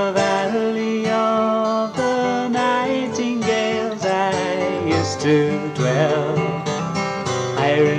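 Song music led by acoustic guitar, with held and changing notes playing continuously.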